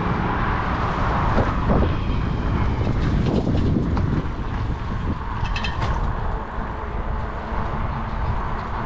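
Road traffic going by, a little louder in the first few seconds, with wind rumbling on the microphone.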